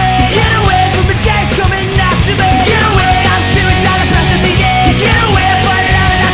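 Loud punk rock music with distorted guitars and a steady beat.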